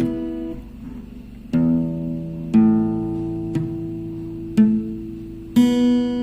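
Background music: plucked acoustic guitar notes and chords, one about every second, each ringing out and fading before the next.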